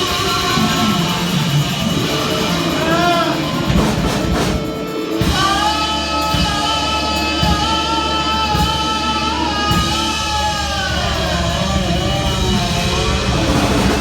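Live rock band playing: electric guitars, bass and drums, with a dip about five seconds in and then a long held note that bends in pitch.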